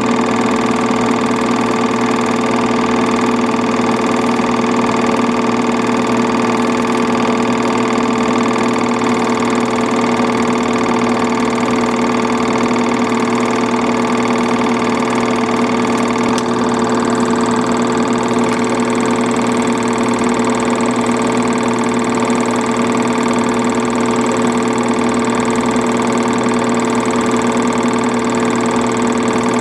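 Film projector running: a steady mechanical whir and rattle over a constant hum, unchanged throughout.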